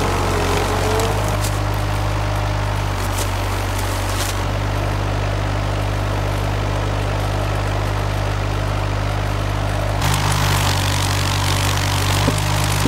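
Mini forestry forwarder's engine running steadily as its hydraulic crane loads logs, with a few light knocks in the first few seconds. The engine sound shifts abruptly about ten seconds in.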